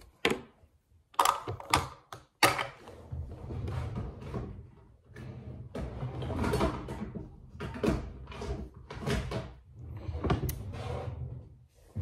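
Several sharp knocks in the first couple of seconds, then irregular rustling and rubbing with a low rumble, as of objects being handled and moved close to the microphone.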